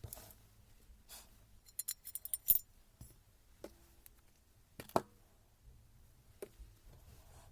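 Metal tools and small parts clinking and knocking on a workbench. There is a quick run of light clinks about two seconds in, then three separate knocks, the first with a brief ring.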